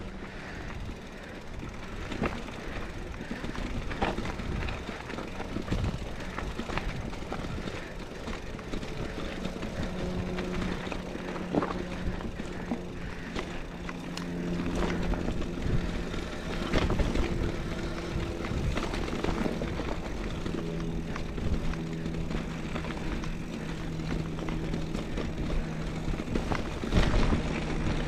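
A mountain bike rolling down a dirt trail: tyre noise and wind rushing on the action camera, with frequent knocks and rattles as the bike goes over bumps and rocks, and a few harder knocks near the end. A low steady hum runs through the middle of the ride.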